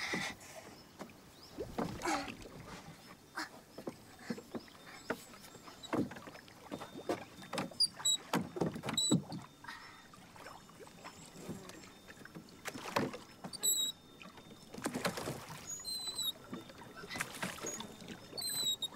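Wooden rowboat being rowed: oars knocking against the boat and splashing in the water, with short high chirps now and then.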